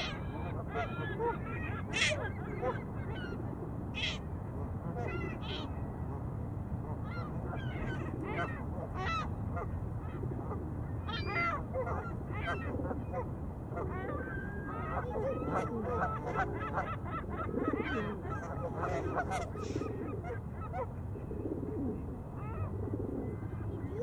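A flock of geese honking: many short calls, some close and loud, scattered throughout, over a steady low background rumble.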